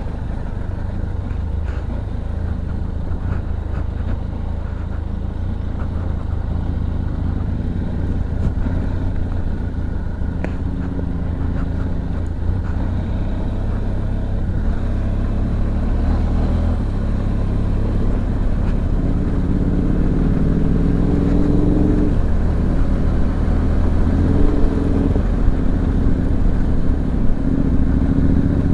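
Benelli TRK 502X's parallel-twin engine running as the motorcycle is ridden, over a steady low rumble. In the second half the engine note rises and falls repeatedly as the bike accelerates and changes speed, and it grows gradually louder toward the end.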